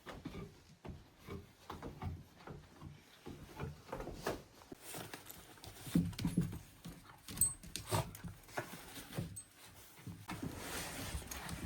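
A dog panting and moving about, with scattered short taps and scuffs; a louder cluster of knocks comes about halfway through.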